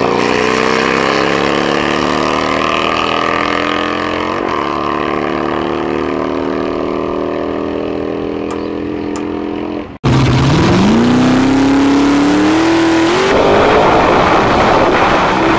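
Two drag-racing motorcycles run away down the strip at full throttle, their engine note breaking once at a gear change and slowly fading with distance. After a sudden cut, a Ford Cortina's engine revs up sharply at the start line, giving way to a rougher rush of engine and tyre noise as it goes into a burnout.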